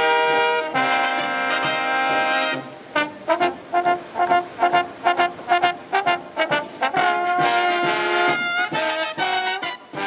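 Marching brass band playing, trombones and trumpets over sousaphones with snare drum: a held chord for the first two and a half seconds, then short accented notes on a steady beat, a second held chord about seven seconds in, and short notes again near the end.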